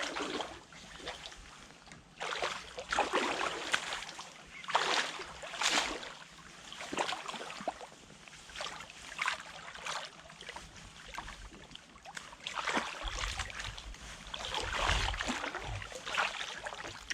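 Water splashing and sloshing in irregular swishes every second or two, with a heavier, deeper surge of water near the end.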